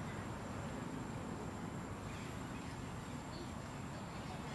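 Outdoor tree-canopy ambience: steady low background rumble with a faint, steady high whine, and a few faint, short, high animal calls about two and three seconds in.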